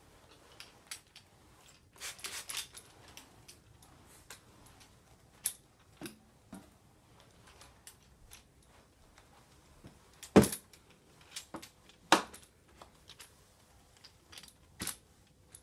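Scattered clicks and knocks of a Love 2 Clean spray mop's plastic head and swivel joint as it is pushed over a hardwood floor, with a quick run of clicks a couple of seconds in and two louder knocks about ten and twelve seconds in.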